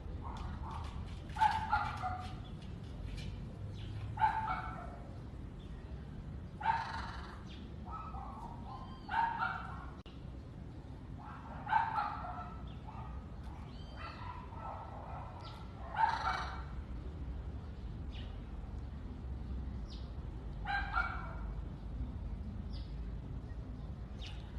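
An animal's short, pitched calls repeat every two to three seconds, some in quick pairs, over a steady low hum.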